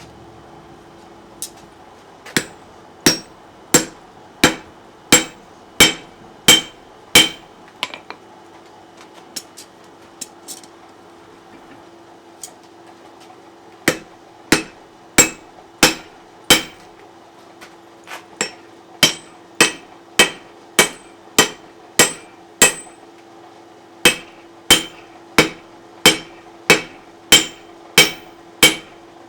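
Hand hammer striking steel on an anvil in runs of steady blows, about one and a half a second, each with a short metallic ring, with a few lighter taps between runs. This is the forging down of a tool's shank to fit the hardy hole. A steady low hum runs underneath.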